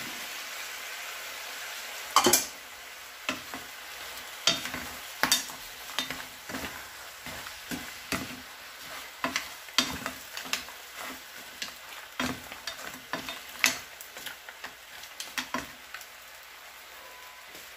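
Mussels in their shells and whole shrimp sizzling in a hot frying pan while a wooden spatula stirs them, with frequent clacks and knocks of the spatula and shells against the pan. One knock about two seconds in is the loudest.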